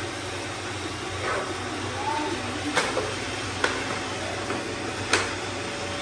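Robot vacuums, iRobot Roombas among them, running steadily on a tile floor strewn with water beads. Three sharp clicks come about halfway through, a little later, and near the end.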